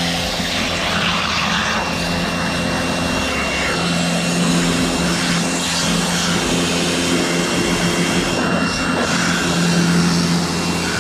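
Electric pressure washer running, its motor and pump humming steadily over the hiss of the water spray, the hum easing off and coming back a few times as the trigger is worked.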